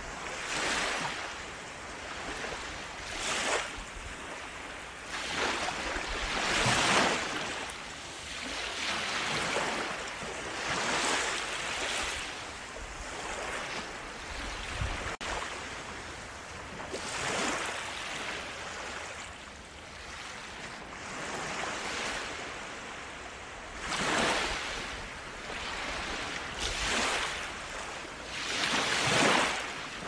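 Small waves breaking and washing up a sandy beach, the surf swelling and fading every few seconds, loudest about seven seconds in and again near the end.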